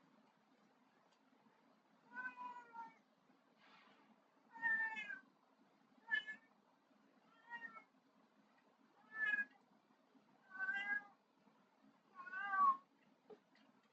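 A cat meowing over and over: about eight separate meows, each under a second long, coming every second or so.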